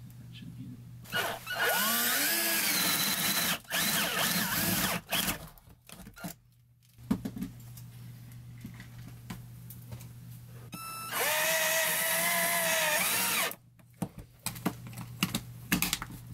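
Power drill driving screws into pine wall boards, in two runs of a few seconds each, its motor pitch rising as it spins up and dropping as it stops, with small handling clicks between.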